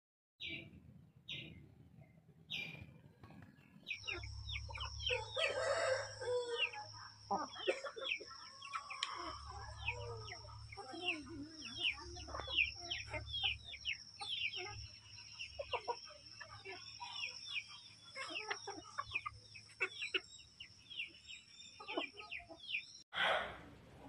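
Parrot-beak aseel chickens calling: a few clucks, then many short, falling chirps and calls from about four seconds in, over a steady high-pitched whine.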